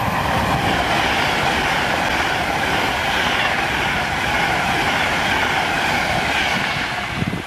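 Class 390 Pendolino electric train passing at speed: a steady loud rush of wheel and air noise that eases slightly near the end.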